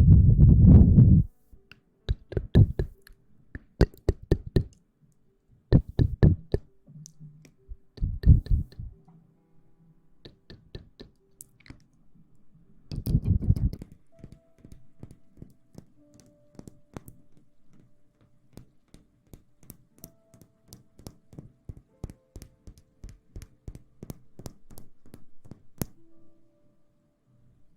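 Close-miked ASMR rustling: short bursts of rubbing and crackling against the microphone every couple of seconds, the loudest right at the start, then a long run of scattered light taps and clicks.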